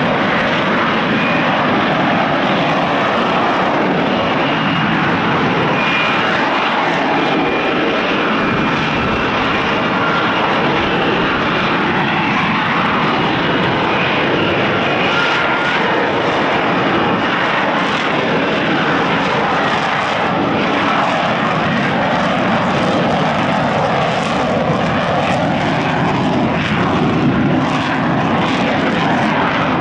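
Lockheed Martin F-35B in a hover: its F135 jet engine and shaft-driven lift fan running in a steady, loud roar with a faint high whine.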